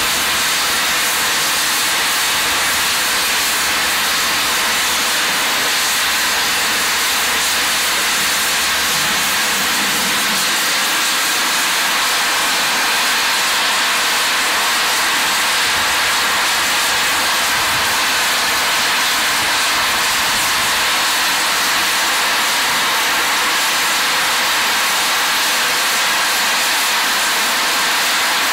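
LSWR T3 steam locomotive's safety valves blowing off: a loud, steady hiss of escaping steam, the sign that the boiler is at full working pressure.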